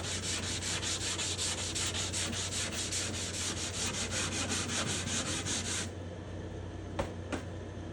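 Sandpaper on a felt-faced sanding block rubbing a spruce guitar top in quick, even back-and-forth strokes, lightly and with the grain, wearing off a coat of shellac. The strokes stop about six seconds in, and a single click follows about a second later.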